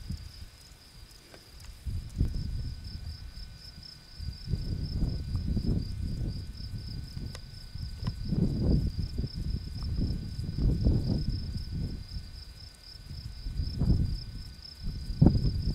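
An insect's steady, finely pulsing high trill runs on without a break. Under it, a low, gusty rumble swells and fades several times, loudest about two-thirds of the way in and near the end, as wind buffets the microphone.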